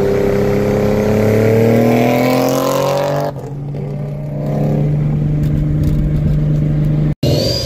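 A car engine accelerating hard, its pitch climbing for about three seconds, then dropping abruptly as the revs fall. It then runs on at a steady lower pitch until the sound cuts out briefly near the end.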